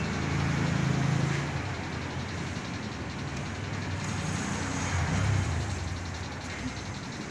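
Low rumble of motor vehicle engines going by, swelling about a second in and again near five seconds.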